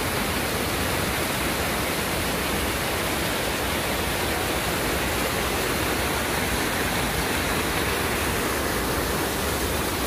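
Tall waterfall and the cascade over the rocks below it: a steady rush of falling water.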